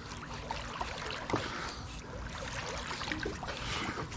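Swimming-pool water splashing and lapping, stirred by a Miniature Schnauzer dog-paddling and a man swimming close behind it: a steady run of small splashes, with a slightly louder splash about a second in.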